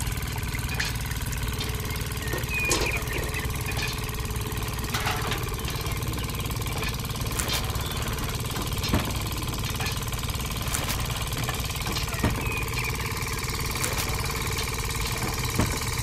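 A machine running steadily: a low hum with a few steady tones above it, and scattered light clicks.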